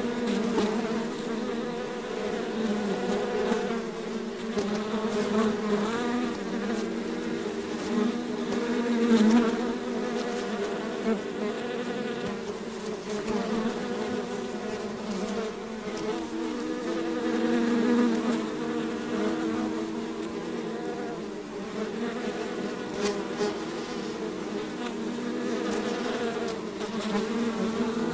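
A swarm of bees buzzing: a dense, continuous drone of many wings together that swells and eases every few seconds.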